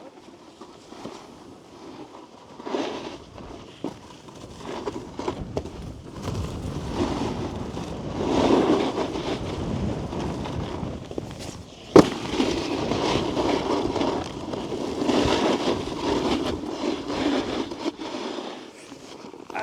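Snowboard base and edges scraping and hissing over snow as the rider rides into and over a transfer jump, with one sharp, loud smack of the landing about twelve seconds in. The rider slightly cased the landing, catching the knuckle of the jump short.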